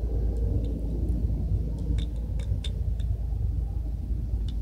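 Steady low rumble with a few faint light clicks, clustered about two to three seconds in and once more near the end.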